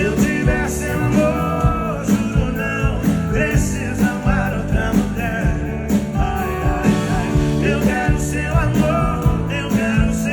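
Sertanejo song playing: a full band with guitars and a steady drum beat, and a sung melody over it.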